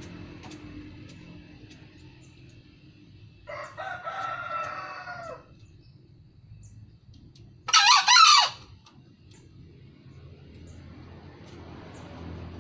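Green junglefowl crowing once, about eight seconds in: a short, loud, shrill crow in two parts. About four seconds in comes a lower, pitched fowl call lasting about two seconds.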